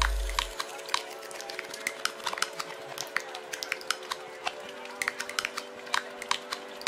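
Background music: a held, sustained chord with many soft clicks scattered through it. A deep bass note drops out about half a second in, and the chord shifts a little past halfway.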